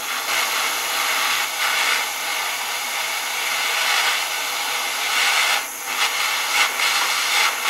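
Propane torch flame hissing steadily as it heats a steel screwdriver blade to a red glow for hardening, with a brief dip about two-thirds of the way through.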